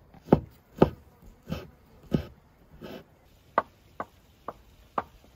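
Knife chopping on a wooden board: nine separate strikes, the first four heavy and loud, then a soft one, then four lighter, sharper ones about two a second.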